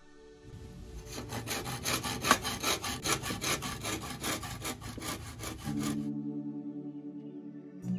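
A hand saw cutting through a green bamboo pole in quick, even back-and-forth strokes. It starts about a second in and stops about six seconds in, with soft background music returning.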